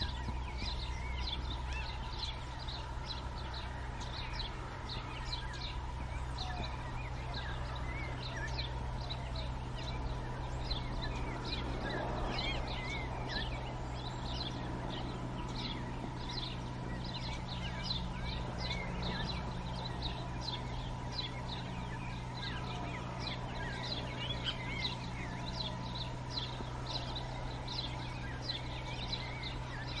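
A flock of dickcissels calling continuously, a dense chatter of short, high, downward-slurred chip notes, several a second, over a steady low hum.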